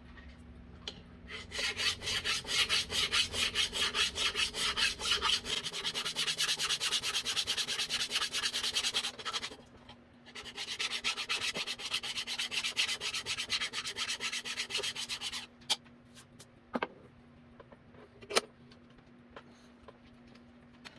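Hand file scraping across the metal of a grinder in rapid back-and-forth strokes, two runs of several seconds with a short break between them, to clean it up. A few light knocks follow once the filing stops.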